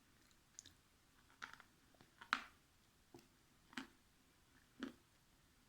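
Dried clay being bitten and chewed, giving about six short, dry crunches a second or so apart, the loudest about two seconds in.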